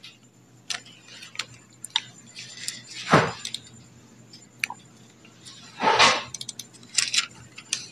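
Thin Bible pages being leafed through and turned by hand: soft rustling and small clicks, with two louder page swishes about three and six seconds in.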